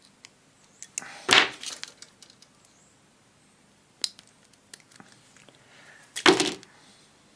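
Small tools and metal parts being handled on a radio chassis: scattered light clicks and taps, with two louder short scraping clatters, one about a second in and one near the end.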